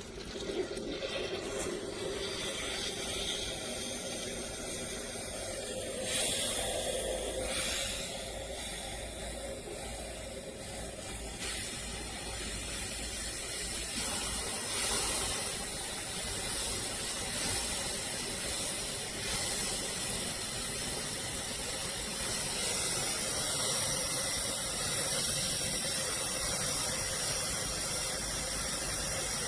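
Hamilton Beach FlexBrew Trio coffee maker heating water for a brew: a steady hiss, with a faint hum and small swells of steam and water noise.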